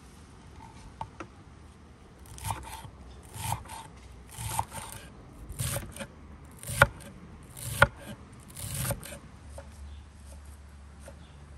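Large kitchen knife slicing through a bunch of fresh dill and parsley on a wooden cutting board: seven crisp cuts about one a second, each ending with the blade knocking the board, two of the knocks sharper than the rest.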